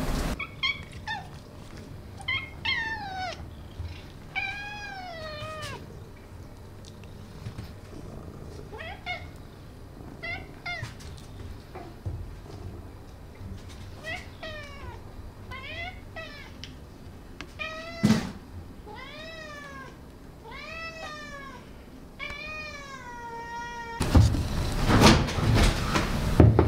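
Domestic cat meowing over and over, a long run of short calls that rise then fall in pitch, some clipped and chirp-like. A single sharp knock about two-thirds of the way through, and a louder stretch of knocking and rustling near the end.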